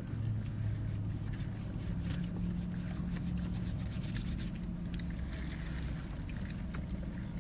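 Steady low hum of a car's idling engine heard inside the cabin, with faint small clicks and rustles on top.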